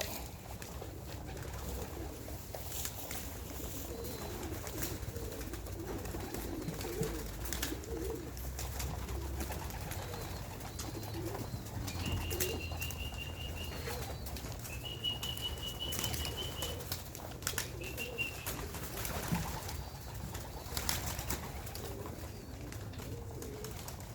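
Racing pigeons cooing around the loft, with wings flapping now and then. A high, rapid trilling call sounds three times near the middle.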